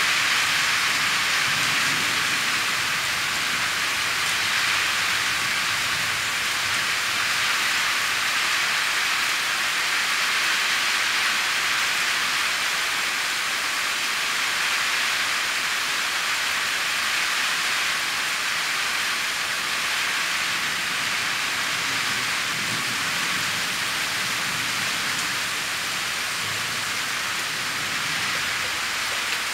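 Heavy rainstorm: a downpour falling in a steady, dense hiss.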